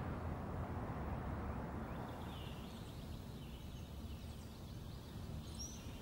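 Faint outdoor ambience with a low steady rumble, and small birds chirping from about two seconds in.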